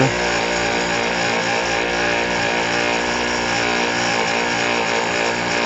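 Small brushed DC motor on a 7.2-volt battery running steadily, spinning a model-boat bow thruster's impeller through a driveshaft and universal joints, with an even whir and the impeller churning the water.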